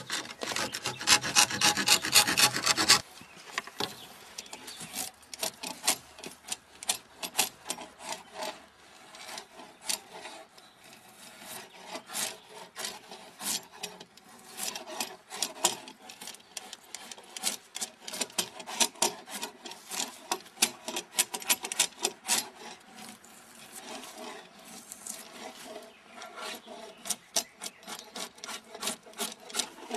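Two-handled drawknife scraping along a round log, shaving off bark and wood in clusters of short strokes with brief pauses. The first three seconds hold a louder, faster run of scraping that stops abruptly.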